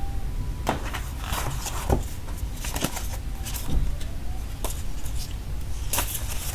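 Stiff white card inserts and a paper leaflet from an Apple Watch Hermès box being handled and folded open: irregular dry rustles, crinkles and light taps, with a louder flurry near the end. A low steady rumble runs underneath.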